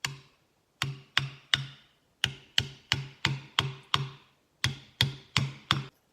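Hammer blows driving a wedge into the eye of an axe head to tighten it on the handle. There is one blow at the start, then about fourteen more in three runs at roughly three a second, each with a short ring.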